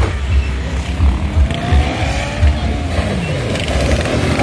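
Motorcycle engines revving and passing during wheelie stunts. One engine's pitch rises about halfway through, then the pitch falls as a bike goes by.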